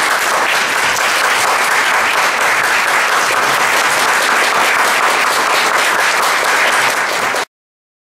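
Audience applauding steadily, a dense patter of many hands; it cuts off abruptly near the end.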